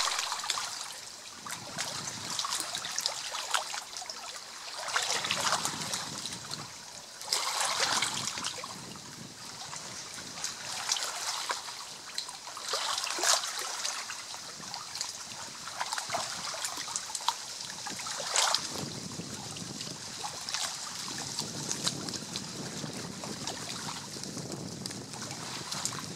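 Small waves lapping and trickling against a stony river shore, swelling and fading every couple of seconds. A low rumble joins in for the last several seconds.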